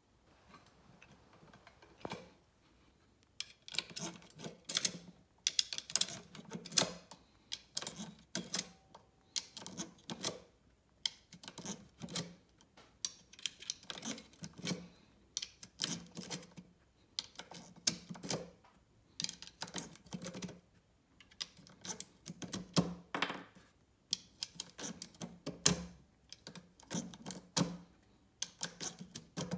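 Clicking of .22LR cartridges being pushed one at a time through a plastic syringe-style speedloader into a ProMag 22-round Remington 597 magazine. A short cluster of sharp clicks comes every second or two, starting about two seconds in.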